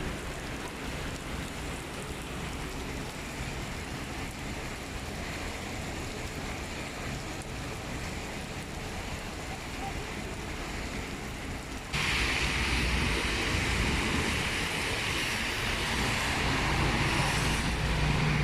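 Steady rain and road traffic noise. About twelve seconds in the sound jumps suddenly louder, with a harder hiss, and stays that way.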